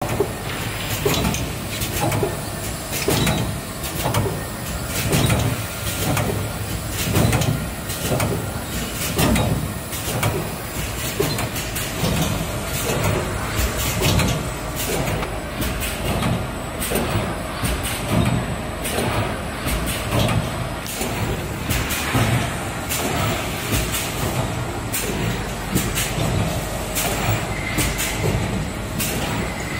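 Four-colour CNC automatic glass-bottle screen printer running: a quick, uneven run of mechanical clacks and knocks from its moving fixtures, over a steady machine hum.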